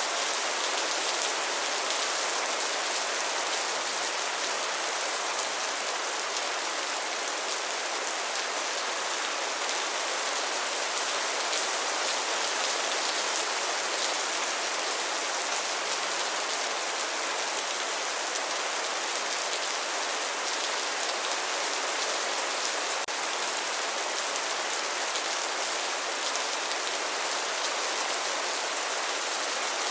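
Steady rain falling, an even hiss of many raindrops with no change in intensity.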